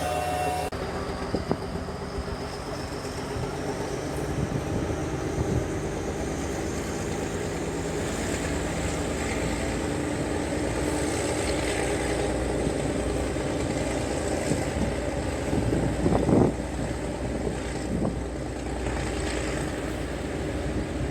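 Train running on the track: a steady rumble and rattle with a few louder knocks about three-quarters of the way through.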